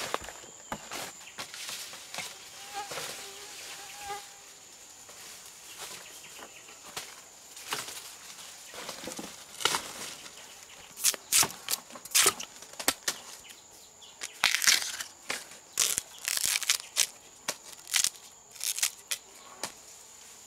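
Irregular rustling and crackling of vegetation being handled, growing denser and sharper in the second half, over a steady high-pitched insect drone.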